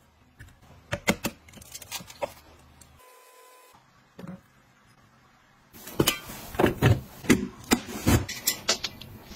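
A cleaver blade knocking and scraping on a taped cardboard box as it is cut open: a quick run of sharp knocks starting a little past the middle. Before that, a few light clicks and a short beep.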